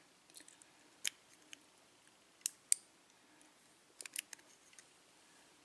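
Small sharp metal clicks and taps, about seven in all with a quick cluster of three near the end, as pins and parts of a Schlage KIK lock cylinder are handled while the pin stacks are being loaded back in.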